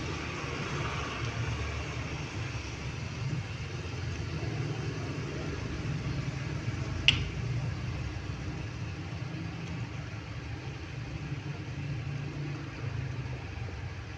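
Chicken pieces sizzling in oil in a metal pan over a steady low hum. About seven seconds in there is one sharp metallic clink, the steel ladle striking the pan.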